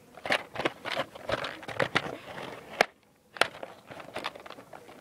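A cardboard toy box being handled and worked open by hand: irregular scraping, rubbing and small clicks and taps, with one sharp click just before three seconds in, followed by the sound cutting out completely for about half a second.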